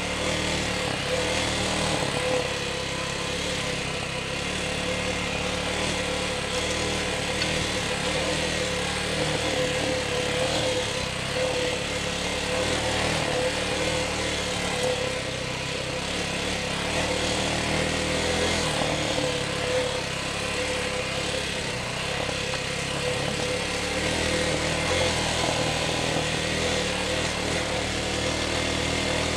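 Chinese TDR 300 dirt bike engine running under a rider on a rough single track, its pitch rising and falling in steps as the throttle changes. Wind and ground noise sit over it, and a steady whine runs underneath.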